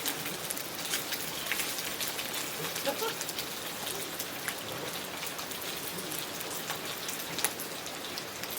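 Steady rain falling, a dense patter of individual drops with sharper close hits scattered through it.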